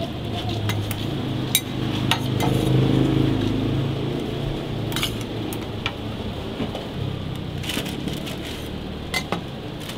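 Metal spatula and knife clinking and scraping on a steel flat-top griddle as a burger is handled, a scattering of sharp clinks, over a low steady hum that swells a few seconds in.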